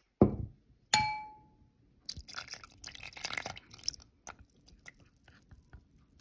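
A dull knock, then a single ringing clink of a small container against the bowl, followed by about two seconds of a thin sauce pouring and splashing into a bowl of ketchup and barbecue sauce, with a few small clicks after.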